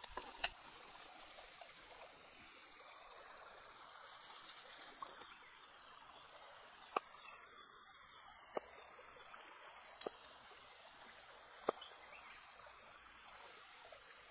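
A knife slicing a tomato on a wooden chopping board: a sharp knock each time the blade goes through onto the board, about one every second and a half in the second half, over a faint steady background hiss.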